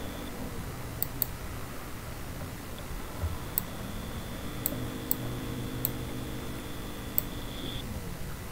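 Computer mouse clicking, about seven short, sharp clicks at irregular spacing, over a steady low hum.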